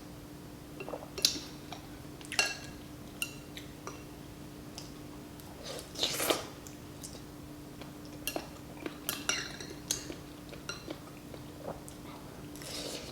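A spoon clinking and clicking against a soup bowl now and then, with chewing between, over a steady low hum.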